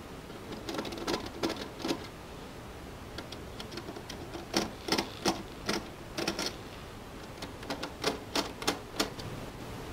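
Irregular bursts of sharp clicks as the bracket screws of a dome camera's flush ceiling-mount plate are turned by hand and tightened, in four groups with short pauses between.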